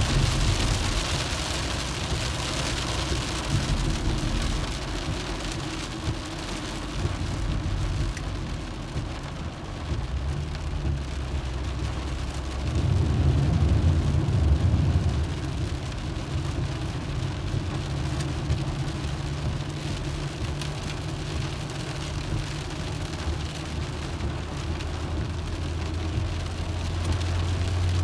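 Rain and the hiss of tyres on a wet road, heard from inside a moving car over the steady low hum and rumble of its engine and the road. The low rumble swells for a few seconds around the middle.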